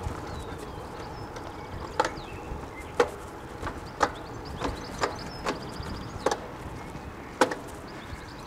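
A series of about eight sharp, hollow knocks at irregular intervals, roughly one a second, the loudest about three seconds in and near the end, over steady low background noise.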